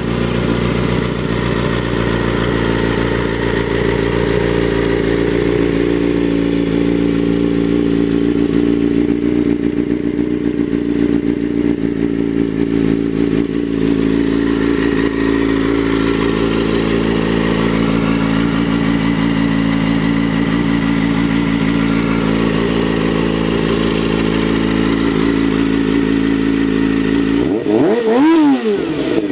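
Kawasaki Ninja ZX-4RR inline-four engine running at a steady speed, then revving up sharply once near the end and dropping back.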